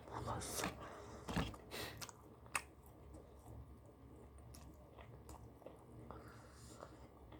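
A person chewing and biting food close to the microphone, with sharp crunches in the first couple of seconds and softer chewing after.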